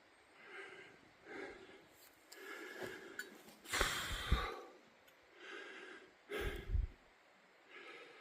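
A hiker breathing hard, about one breath every second, with two louder, deeper exhales around four and six and a half seconds in that blow on the microphone.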